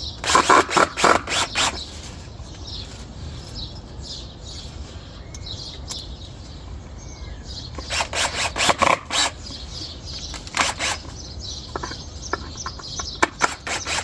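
Runs of sharp knocks and taps, about five a second, in four short bursts, from work on the wooden trellis posts as screws are started. Birds chirp steadily throughout.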